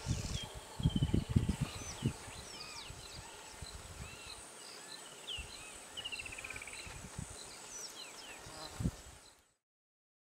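Natural bush ambience: a steady high insect whine under many short bird calls and chirps, with two quick falling trills. Scattered low thumps, strongest in the first two seconds and again near the end, before the sound fades out about nine and a half seconds in.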